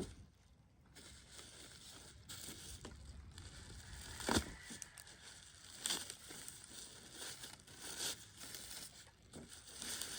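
Packaging being handled during unboxing: irregular crinkling and rustling with scattered clicks, and one sharp knock about four seconds in.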